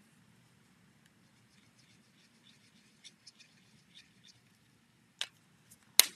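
Faint scratchy dabbing of a Stampin' Blends alcohol marker tip colouring small gem embellishments, then two sharp plastic clicks near the end, the second louder.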